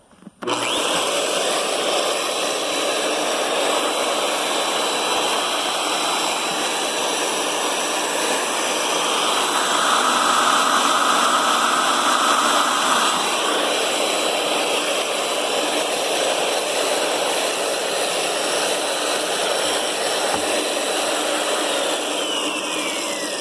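Electric drill running a carbide end mill in plunge cuts on a broken head bolt, a steady whining motor with the grinding of the cut. It starts about half a second in, grows louder for a few seconds in the middle, and the motor winds down with a falling whine near the end.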